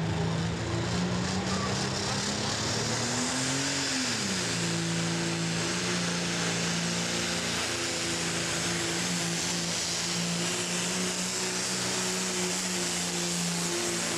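Turbocharged diesel engine of a John Deere pulling tractor under full load while dragging a weight-transfer sled. Its pitch climbs over the first few seconds, drops sharply about four seconds in, then holds steady as the tractor pulls on.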